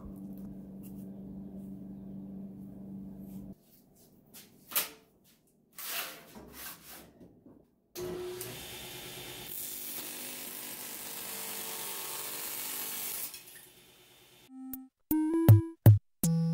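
Table saw cutting through an ABS plastic sheet for about five seconds from halfway in: a steady hiss over the motor's hum. Before it there is a steady hum and a few knocks, and near the end short synthesizer notes of background music begin.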